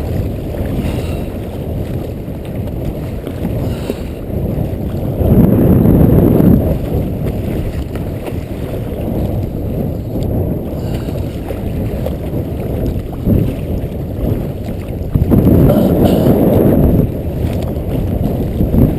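Strong wind rumbling on the microphone out on the water in a kayak, a low, steady roar that swells louder twice, about five and fifteen seconds in.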